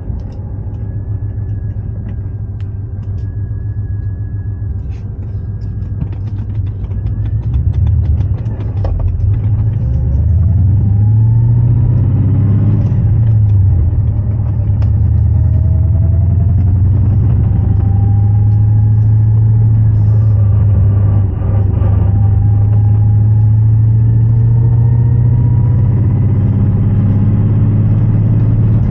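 Aluminium 5.7 LS1 V8 swapped into a BMW E36 running through its custom exhaust, which has an exhaust leak. The engine gets louder about ten seconds in, rises and falls in pitch briefly, then holds a steady, louder run.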